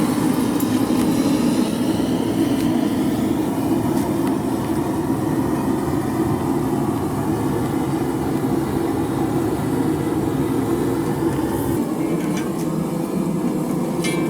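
Forge running with a steady rushing noise. Near the end its deepest rumble drops away, and a couple of faint clinks are heard.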